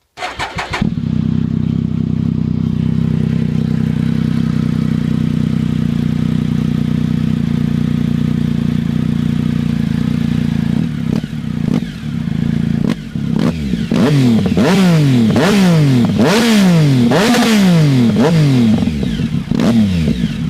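Triumph Tiger 1050's three-cylinder engine through a Fuel race exhaust: starting up, idling steadily, then a few short throttle blips about eleven seconds in, followed near the end by a run of about seven quick revs, each rising and falling in pitch.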